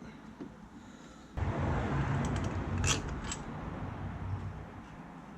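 Scraping and rumbling handling noise from work on the engine's parts, starting suddenly about a second and a half in, with a sharp click near the middle, then fading.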